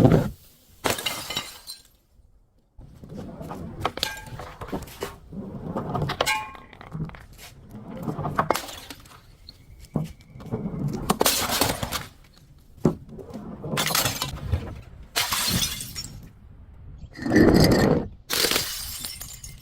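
Glass bottles being broken and crushed: a long run of separate sharp shattering crunches with clinking shards between them, loudest in the last few seconds.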